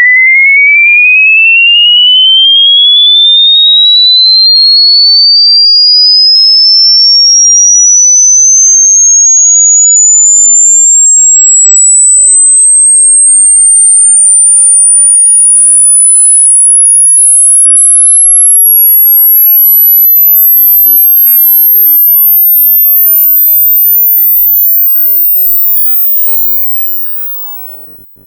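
Hearing-test frequency sweep: a single pure sine tone gliding steadily upward from a high whistle to the top of human hearing. Faint extra tones slide down and up beside it in the last several seconds, and the sweep fades out near the end.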